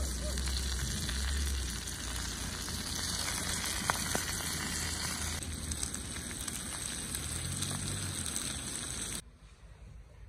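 Fish frying in a pan on a portable gas camping stove: a steady sizzle that cuts off suddenly about nine seconds in.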